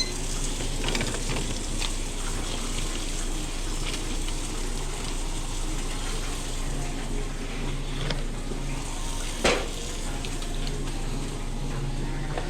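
Steady sizzling hiss of food cooking on a restaurant kitchen line, with a few light knocks of utensils or pans and one sharper knock about three-quarters of the way through.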